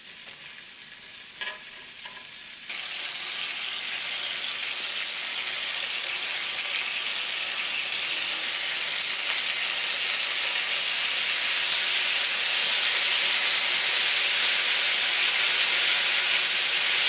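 Chicken heart skewers sizzling on a hot electric griddle as spicy sauce is brushed onto them. The sizzle comes in about three seconds in and grows steadily louder.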